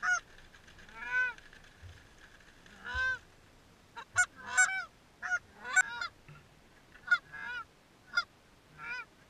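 Canada goose call blown by hand: loud honks, a few drawn-out ones in the first three seconds, then a run of shorter, quicker honks and clucks.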